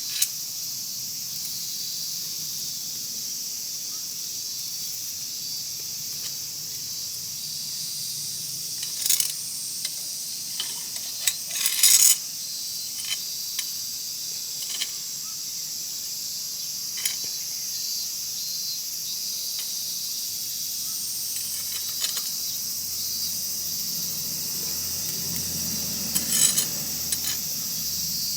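Wood fire crackling, with scattered sharp pops and snaps, a cluster of them about twelve seconds in and again near the end, over a steady high hiss.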